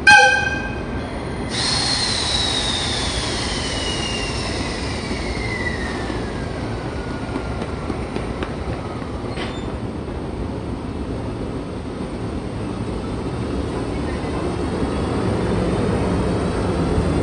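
EF65 electric locomotive sounding a short blast on its whistle, then moving off along the platform. A long high tone slowly falls in pitch over several seconds, and the rumble of the locomotive grows louder as it draws alongside near the end.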